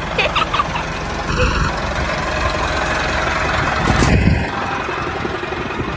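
Tractor engine running steadily at idle, with a short beep about a second and a half in and a brief louder swell near four seconds.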